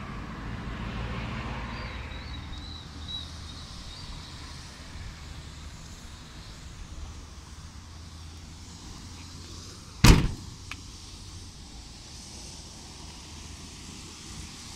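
Pickup truck tailgate slammed shut about ten seconds in: one sharp loud bang, then a small click. A low steady rumble runs underneath.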